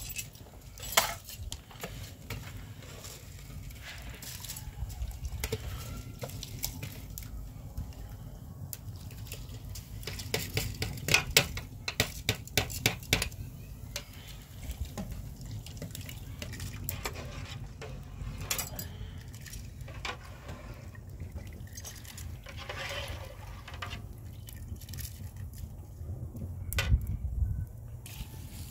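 Cooking sounds: a metal spoon clinking and scraping against a plastic bowl and a steel pot as ingredients are poured into the pot over a wood fire, with a quick run of clinks in the middle. A steady low rumble runs underneath.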